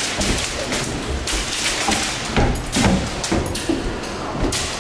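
Airsoft guns firing in the close quarters of an indoor field: sharp cracks and knocks at irregular intervals, the loudest two a little over two and a half seconds in and near three seconds.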